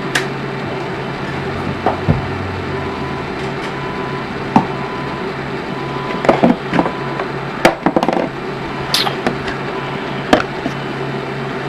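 Steady hum with scattered sharp clicks and knocks from handling the Betacam SP camera, several coming in quick clusters about six to nine seconds in.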